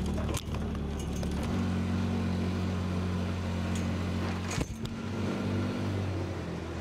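Engine of a small off-road utility vehicle running steadily as it drives over a snowy trail. Its pitch shifts about a second and a half in, and it is broken by a couple of short knocks.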